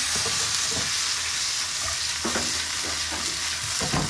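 Potato sticks sizzling as they fry in oil in a nonstick frying pan, with the pan shaken and the potatoes tossed.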